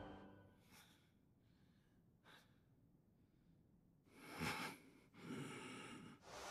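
Near silence: room tone, with a few faint, brief sounds about halfway through and near the end.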